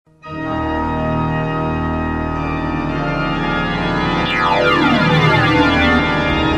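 A sustained organ-like chord starts abruptly and holds steady. From about four and a half seconds in, tones slide down and up across each other.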